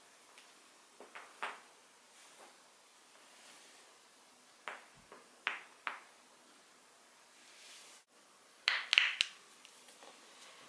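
Human joints being cracked: short, sharp pops, a few single cracks spread over the first six seconds, then a quick cluster of louder pops about nine seconds in.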